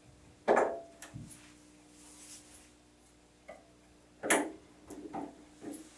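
Grooming scissors snipping the hair around a dog's foot: a few separate sharp snips, the loudest about half a second in and again about four seconds in, with fainter snips between.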